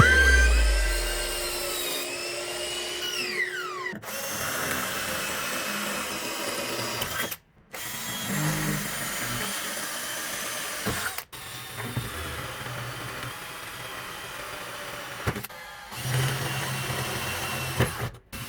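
Power tool motors running in short clips cut together, with abrupt breaks between them. In the first few seconds a motor's pitch rises and then falls away as it winds down.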